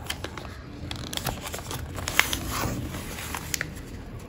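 Paper rustling and crinkling with small clicks as a kraft paper mailer envelope is sealed with double-sided tape: the tape's backing strip is peeled off and the flap is pressed shut.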